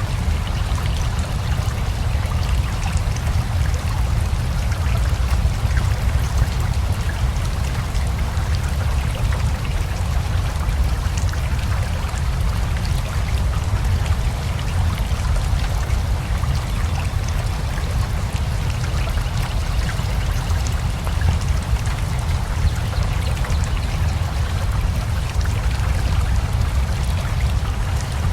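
Steady rain mixed with a flowing river: a continuous low rush of running water under an even patter of falling drops.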